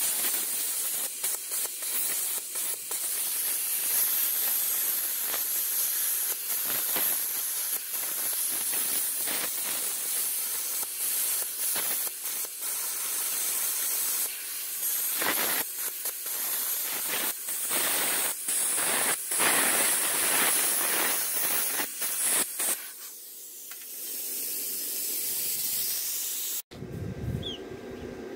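Cheap plasma cutter cutting through a steel car frame rail: a loud, steady hiss of the arc and air with irregular crackling. The arc stops about 23 seconds in, leaving a softer hiss of air for a few seconds.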